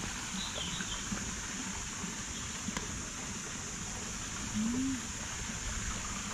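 Outdoor pond-side ambience: a steady high hiss with a brief bird chirp about half a second in and a short low hum a little before five seconds.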